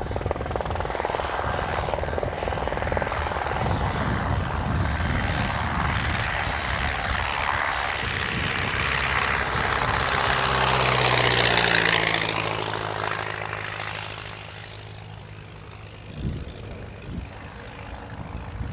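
Light helicopter's rotor and turbine running while it manoeuvres. About eight seconds in this gives way to a vintage biplane's piston engine and propeller passing low, loudest a few seconds later, its engine pitch dropping as it goes by, then fading away.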